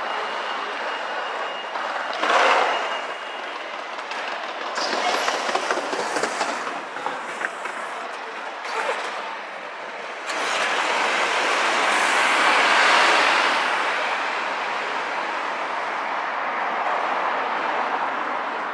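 City street traffic noise, with a vehicle passing close: the sound builds sharply about ten seconds in and fades slowly over several seconds. Shorter swells from other passing traffic come earlier.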